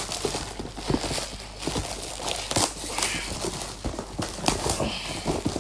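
Gift-wrapping paper crinkling and tearing in irregular crackles as hands pull at a stiffly wrapped present that will not come open.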